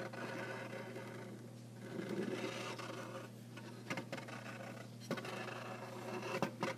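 Small display turntable turning a toy car: a steady low motor hum with a faint scraping rub and a few sharp clicks near the end.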